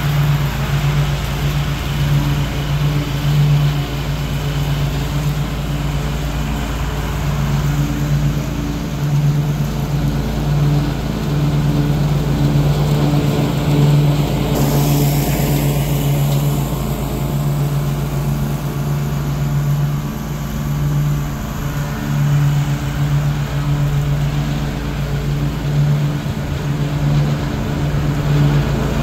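Ariens Ikon zero-turn riding mower running steadily with its blades engaged, cutting grass as it drives across the lawn and back.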